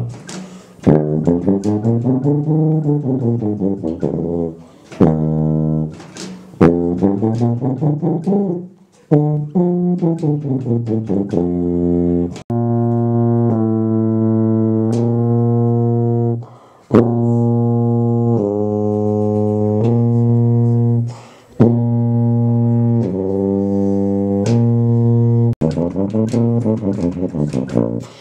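Sousaphone played solo. First quick runs of notes climbing and falling, then from about twelve seconds in a series of long held low notes with short breaks between them.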